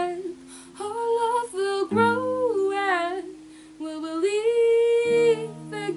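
A girl singing a slow melody in three phrases over her own acoustic guitar. She strikes a chord about two seconds in and another about five seconds in, and lets each ring.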